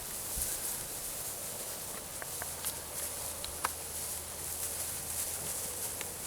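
Outdoor rural ambience: a steady high hiss with scattered small clicks and rustles, and a faint low hum coming in about two seconds in.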